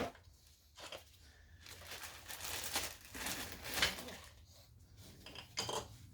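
Scraping and rustling of metal parts as the number 6 piston and connecting rod are pushed out of the RB20DET block's cylinder bore, with a few light clicks.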